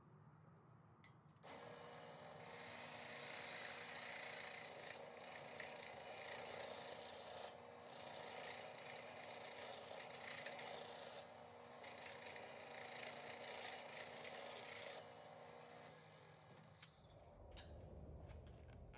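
Wood lathe motor starting about a second and a half in, then a hand-held turning tool scraping and cutting a spinning wooden chisel handle in long passes, with two short breaks. The cutting stops a few seconds before the end.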